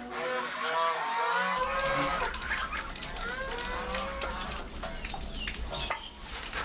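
Domestic geese honking, a quick string of short calls that comes again a little later, with scattered light clicks and knocks near the end.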